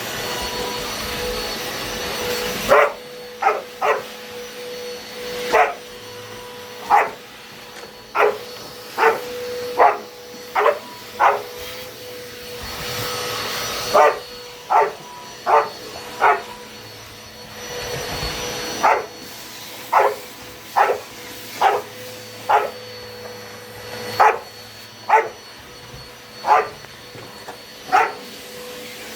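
A dog barking sharply and repeatedly, in quick runs of two to four barks, at a vacuum cleaner that drones steadily underneath with a constant hum.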